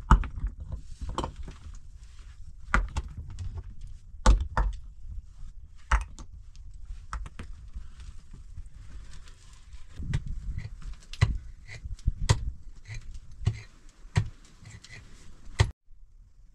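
Loose stones and earth being scraped and cleared by hand in a rocky hollow: irregular knocks and clatter of stones, about one a second, with soft scraping of dirt between them.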